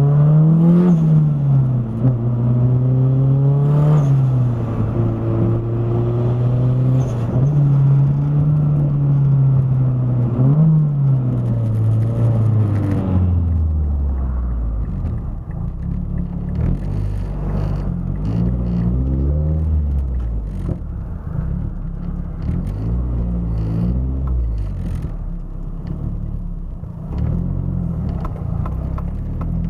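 Turbocharged car engine with a Garrett GT35R turbo, running under load: its note climbs and drops sharply several times in the first half, then settles lower and steadier with a few smaller rises. The owner reports a weird noise from it when boosting.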